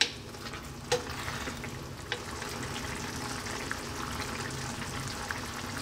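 Sardine and water spinach stew simmering in a pan: a steady bubbling hiss with small scattered pops, and a single knock about a second in.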